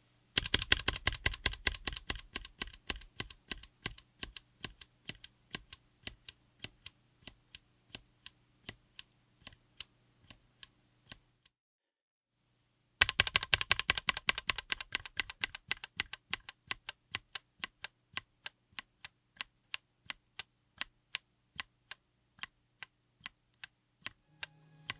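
Mechanical keyboard with Chosfox White Fox linear switches, on an FR4 plate in a Tofu60 aluminium case, being typed on. Each of two runs starts as fast typing and thins to slower single keystrokes. There is a pause of about two seconds partway through.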